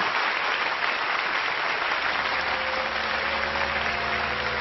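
Studio audience applauding steadily. About two seconds in, a low steady drone of several held tones comes in underneath.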